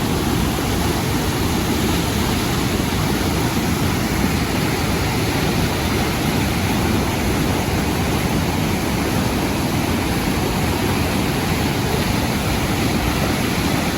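Steady rush of water from a waterfall, an even unbroken roar with a strong low end.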